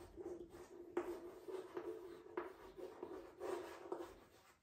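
Chalk scratching on a chalkboard as a sentence is handwritten, in faint, irregular strokes.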